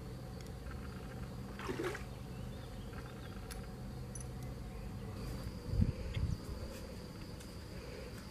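Steady insect buzzing, with two short dull thumps about six seconds in.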